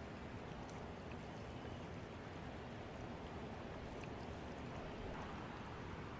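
Steady rush of moving water, with a few small ticks scattered through it.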